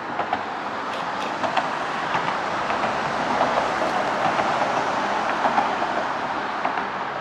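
A train passing on the nearby track: a rushing rumble that swells in the middle and fades toward the end, with faint clicks from the rails.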